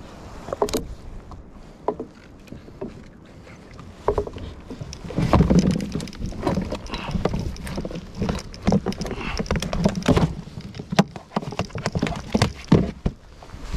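Handling noise on a plastic fishing kayak: scattered knocks and clicks against the hull and gear, with a busier stretch of clattering and rustling from about five to ten seconds in.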